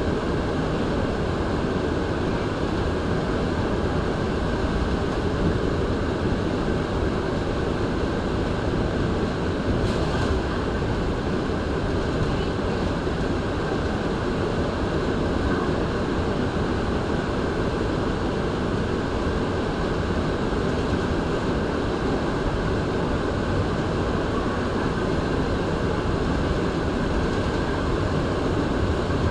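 Montreal Metro MR-73 rubber-tyred train running at speed through a tunnel, heard from inside the car: a steady, dense rumble and rush that holds an even level throughout.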